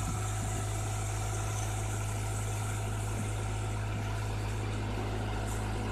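An engine idling steadily, a low even hum that holds unchanged throughout.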